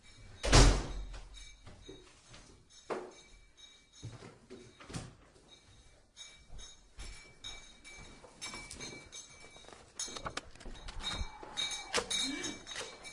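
A single loud thump about half a second in, followed by scattered quieter knocks and clicks.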